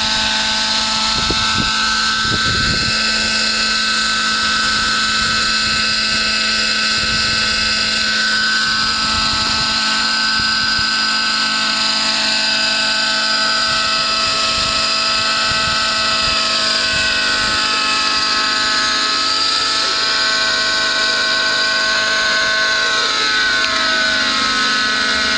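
Nitro glow-engine radio-controlled model helicopter running at a steady high-pitched whine with its rotors turning. Its pitch sweeps down about eight seconds in and again near the end.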